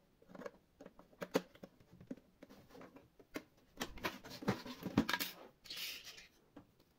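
Irregular small clicks and taps of small objects being handled, busiest about four to five seconds in, followed by a short hiss near six seconds.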